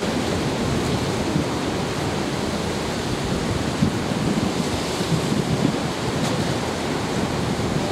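Rough sea surf washing steadily against a jetty's concrete blocks, with wind buffeting the microphone.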